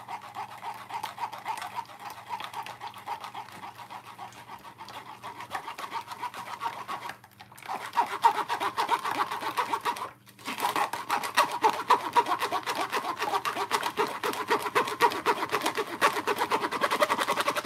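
Metal spoon scraping and stirring blended pomegranate pulp against a mesh strainer in quick, continuous strokes, pressing the juice through. The scraping stops briefly about seven seconds in and again about ten seconds in.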